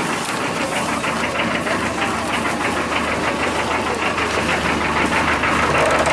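Engine of a small passenger water-taxi boat idling at the pier with a fast, even knock.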